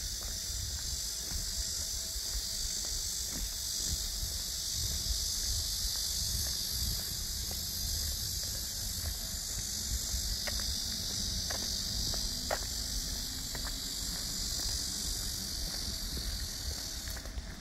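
Cicadas buzzing in the trees, a dense, steady high drone that cuts off abruptly near the end.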